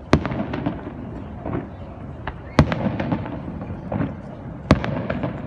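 Aerial fireworks bursting: three loud bangs about two seconds apart, each followed by a spray of smaller pops and crackling.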